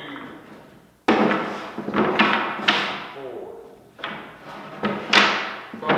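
A series of about five hard knocks and clatters, each ringing out for about a second before the next.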